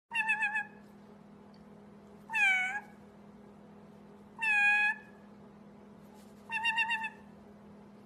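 White-bellied caique making four short meow-like calls about two seconds apart, mimicking a cat: the first and last with a fast quaver, the middle two swooping up and then down.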